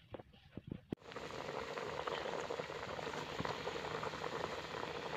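A pot of water boiling hard over a wood fire, a steady dense bubbling that starts suddenly about a second in. Before it come a few brief soft sounds of hands mixing food in a steel bowl.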